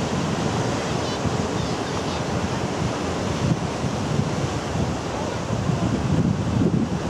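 Sea surf breaking and washing among shoreline rocks, a continuous rush of water.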